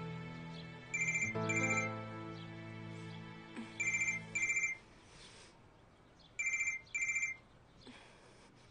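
Telephone ringing with an electronic trilling ring, three pairs of short bursts. Soft sustained background music fades out about halfway through.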